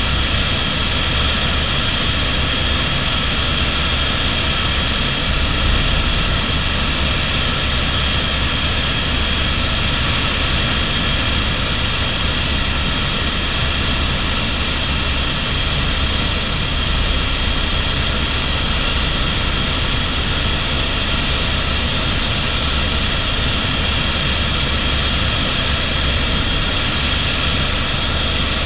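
Airbus AS350 (H125) helicopter's single turbine engine and main rotor running steadily in flight, heard from inside the cabin: a steady high whine over a constant low drone.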